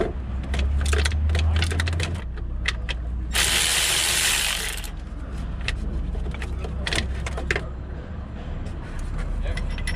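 Socket ratchet clicking in irregular runs while loosening the top 16mm starter bolt on a Nissan Altima 2.5, over a steady low hum. A harsh burst of noise lasting about a second and a half comes a little over three seconds in.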